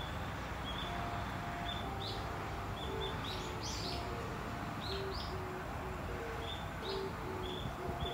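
A small songbird, smaller than a sparrow, calling from the tree canopy: a string of short high chirps at uneven intervals, with a strong voice for its size.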